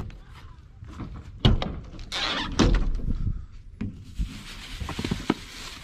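Pickup truck cap's rear hatch unlatched with a sharp thunk about a second and a half in, followed by a longer rustle and a few small knocks as things are moved about in the truck bed.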